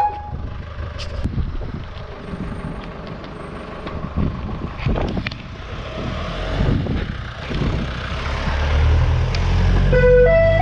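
Ice cream van's engine running as the van drives close by, its low rumble building near the end, over a steady rush of wind and wet road noise. The van's chime tune starts up again just before the end.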